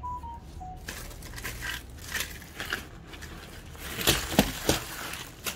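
Rustling and clattering as packaging and small die-cast toy cars are handled, with a cluster of sharp knocks about four seconds in.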